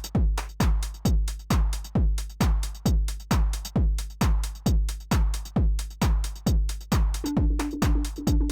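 Electronic dance music with a steady kick drum on every beat, about two beats a second. A held synth note joins about seven seconds in.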